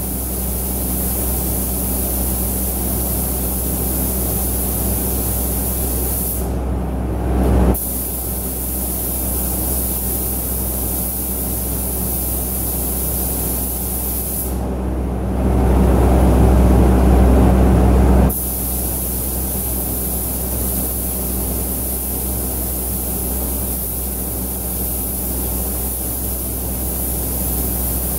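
Air spray gun hissing steadily over the low, steady drone of a paint spray booth's extraction. The hiss drops out twice, briefly about seven seconds in and for a few seconds around fifteen seconds in, while the low drone gets louder.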